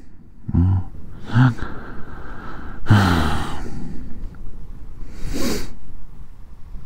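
A man sighing and breathing out heavily, with a few short murmurs between, and one loud airy exhale about five seconds in.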